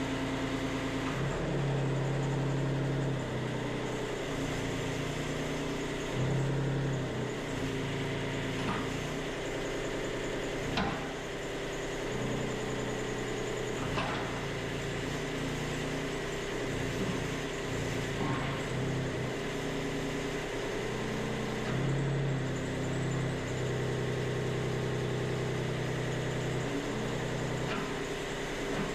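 Mini excavator's diesel engine running under changing hydraulic load as the new thumb and bucket are worked, with a couple of sharp metal clanks.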